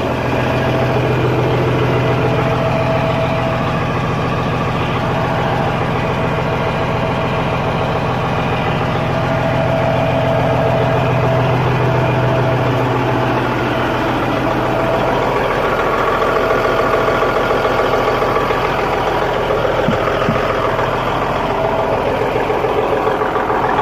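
Volvo semi-truck's diesel engine idling steadily, its low hum weakening somewhat about halfway through.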